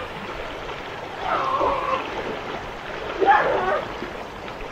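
Steady rush of a shallow river, with two short pitched calls over it, about a second in and again about three seconds in.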